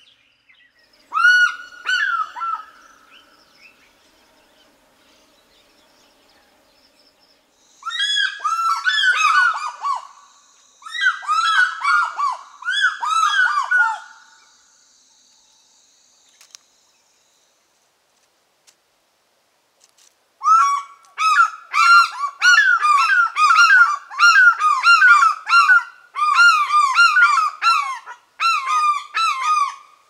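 African fish eagles calling: three bouts of rapid, repeated yelping notes, one near the start, one in the middle, and a longer, denser bout in the last third.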